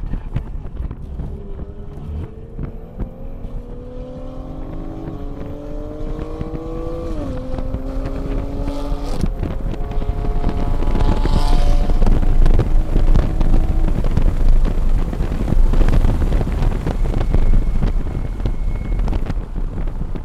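Toyota A90 Supra engine heard inside the cabin, pulling hard under acceleration on track. Its note climbs, drops at an upshift about seven seconds in, and climbs again. About nine seconds in the engine note gives way to loud, steady wind and road noise at high speed.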